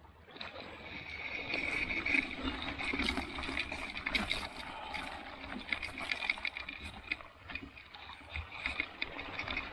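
Bicycle with studded tyres rolling over a snow-dusted gravel beach: steady crunching and rattling, with many irregular sharp clicks from stones and the bike.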